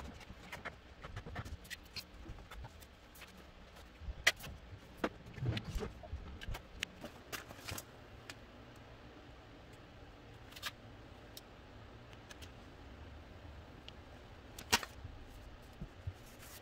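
Intermittent handling noises of a vinyl decal being applied: a squeegee rubbing over the transfer tape and the paper backing rustling as it is peeled off the numbers, with scattered sharp clicks, busiest in the middle, and one louder click near the end.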